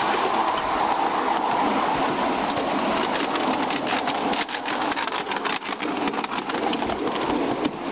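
A 5-inch gauge ride-on miniature train running along its track, with a steady rushing rumble of wheels on rail. A run of rapid clicks and knocks comes in the middle.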